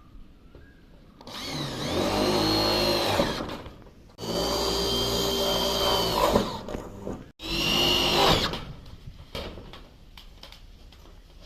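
Handheld electric power tool run in three bursts of about two seconds, one second or so apart. Each time the motor whines up to speed and winds down again.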